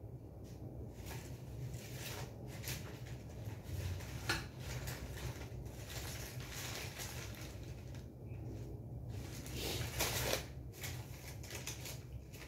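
Sheets of paper rustling and crinkling as they are handled and sorted by hand, in short spells, with a sharp click about four seconds in and a louder rustle near ten seconds. A low steady hum lies underneath.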